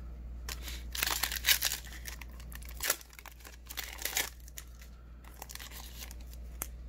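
Foil wrapper of a Panini Mosaic trading-card pack being torn open and peeled off the cards, a run of crinkling crackles that are loudest in the first four seconds and then thin out to a few small rustles.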